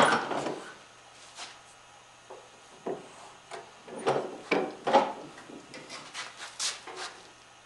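Wooden workpieces being handled on a workbench: about a dozen short, irregular knocks and scrapes of wood on wood, with quiet gaps between them.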